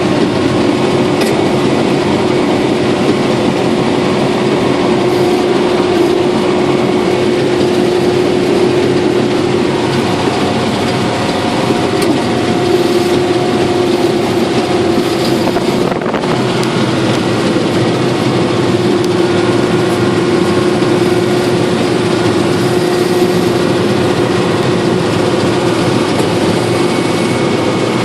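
Combine harvester running steadily under work, its engine and machinery making a dense, even noise with a steady hum.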